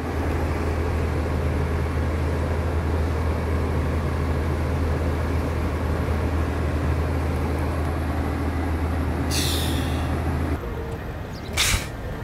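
A vehicle engine idling close by, a steady low drone over street noise. A short hiss comes about nine seconds in, then the drone cuts off suddenly and a sharp knock follows.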